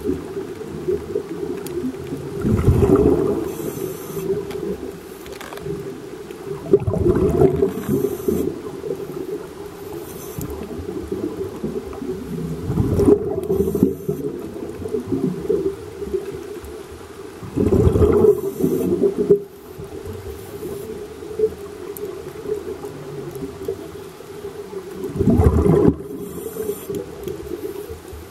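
Underwater scuba breathing through a regulator: five loud rushes of exhaled bubbles, each lasting about a second and coming every four to six seconds, over a steady low hum.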